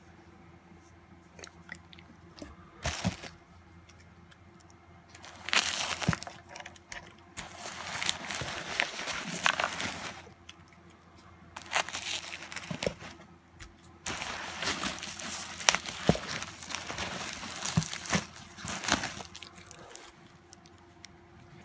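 Bubble wrap and foam packing peanuts rustling and crinkling in a cardboard box as wrapped spray cans are lifted and handled, in several bursts with sharp crackles.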